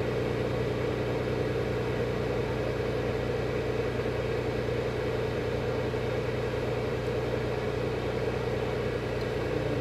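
Single-engine light aircraft's piston engine running steadily with its propeller turning, a constant drone heard close up from a camera on the engine cowling.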